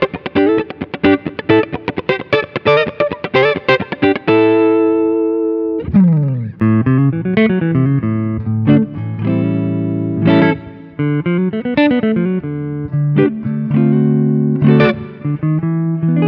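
Tokai ALS62 Gold Top Les Paul-style electric guitar played through its neck humbucker with a warm tone. A fast run of picked single notes gives way about four seconds in to a held chord, then slower phrases with notes gliding up and down and long sustained notes.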